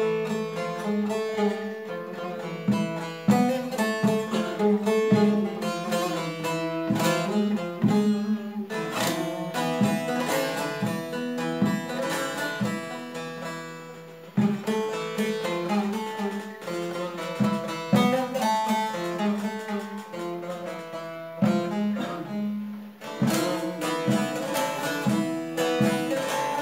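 Bağlama (long-necked Turkish saz) playing a solo instrumental introduction to a Turkish folk song: a quick plucked melody with low strings ringing steadily beneath it. The playing eases off briefly about halfway through, then the phrase starts again.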